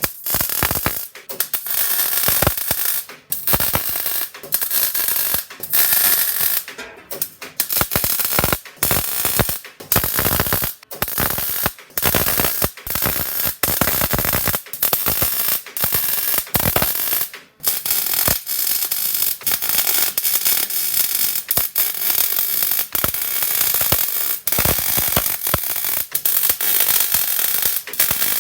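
MIG welding arc crackling and sizzling in repeated runs of a few seconds, with short breaks between welds.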